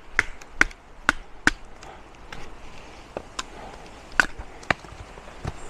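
Sharp, irregular wooden knocks, about two a second at first and then sparser, as small pieces of wood are split with a Fox Aruru folding knife.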